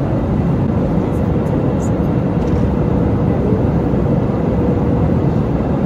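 Steady, loud cabin noise of an airliner, the engines and rushing air heard from a passenger seat inside the cabin.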